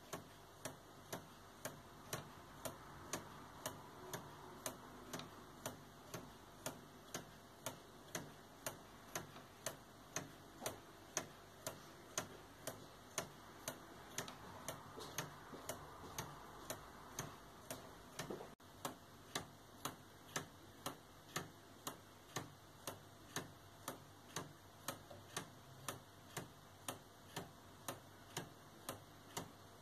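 Wooden laser-cut pendulum clock's escapement ticking evenly, about two sharp wooden ticks a second, the spring-driven movement running smoothly after fine adjustment of its gears and axles.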